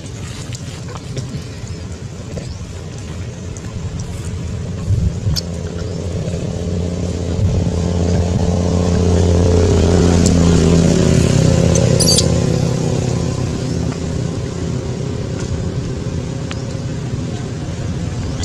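A motor vehicle's engine running as it passes by, growing louder to about halfway through and then fading away.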